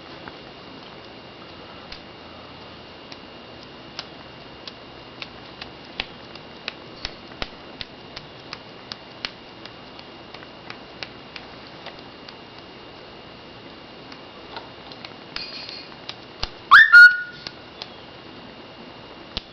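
Pet bird making a run of soft clicks, about one or two a second, then a short chatter and one loud whistled call that rises and then holds, near the end.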